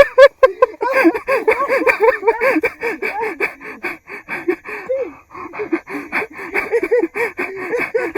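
People's voices, excited shouts and calls without clear words, mixed with hard panting.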